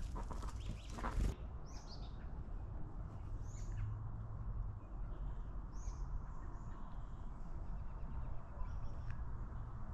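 Small birds chirping faintly now and then, a few short high calls scattered over several seconds, over a steady low outdoor rumble.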